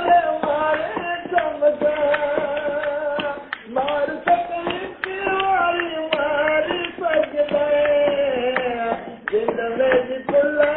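A man singing in long, held, wavering notes, with hands beating out a rhythm alongside.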